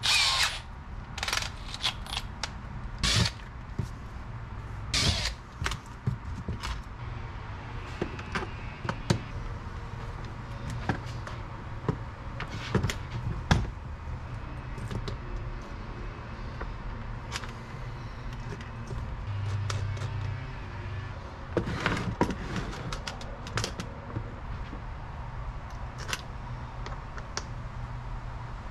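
Irregular clicks, clatter and small metal rattles as battery terminal studs and their hardware are handled and fitted into a plastic battery case's lid, over a steady low hum.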